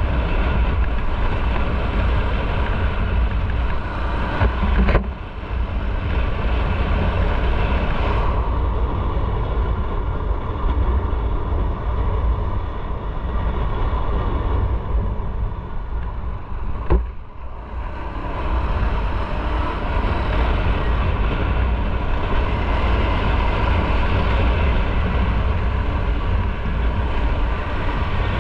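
Motorcycle running at low speed, engine and road noise mixed with wind rumble on the microphone. The sound dips briefly twice, about five seconds in and again around seventeen seconds, the second time with a short sharp click.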